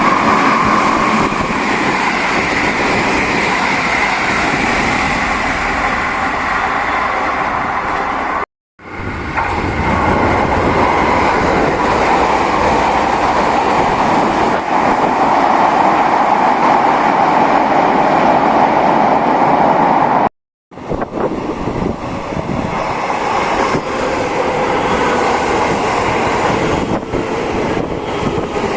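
Train running on rails with a steady rumble and a whining tone. Near the end the whine falls in pitch as the train slows. The sound is broken twice by short edits.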